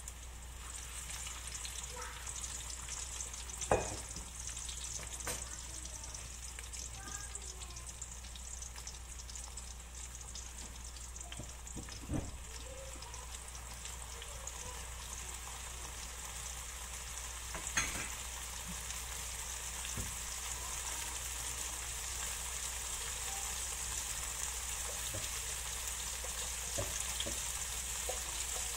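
Tofu cubes frying in oil in a nonstick wok: a steady high sizzle that grows slightly louder toward the end, broken by a few sharp knocks.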